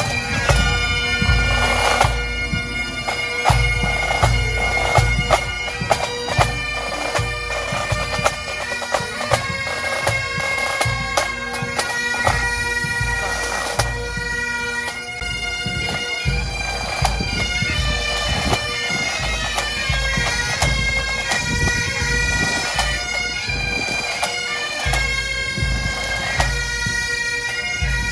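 Great Highland bagpipes playing a tune: a melody of shifting notes over the pipes' steady, unbroken drone.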